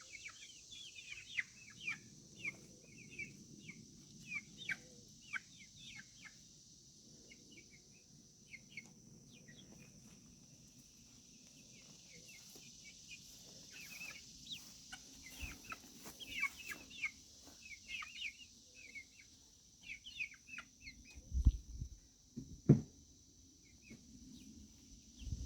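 Chickens clucking and peeping in many short calls, with a steady high-pitched drone underneath. A few heavy thumps come near the end.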